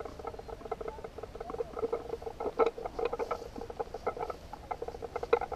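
Homemade handheld camera stabilizer rattling and clicking as it is carried, with rapid irregular ticks over a wavering buzz, muffled through the GoPro's housing.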